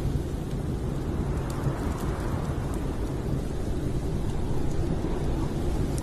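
Steady low rumble of storm wind, with a few faint crackles from the wood fire in the stove.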